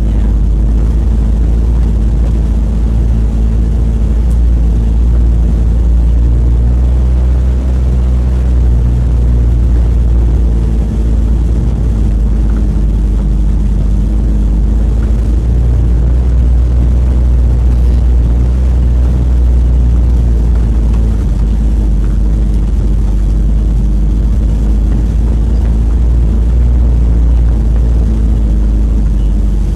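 Mitsubishi L300 pickup's engine running steadily under way, heard from inside the cab as a low drone with road noise.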